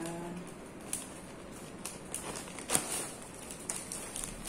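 Plastic shopping bags and a zip-top plastic bag rustling and crinkling as they are handled, with scattered sharp crackles and one louder snap near the middle.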